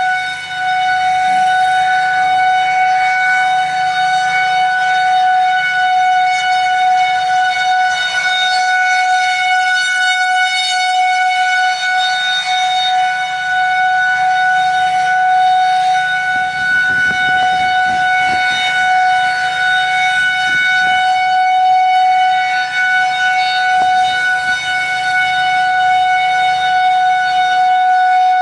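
Federal Signal 2001-SRNB rotating outdoor warning siren sounding its steady alert tone at about 740 Hz, one held pitch with overtones. Wind rumbles on the microphone about halfway through.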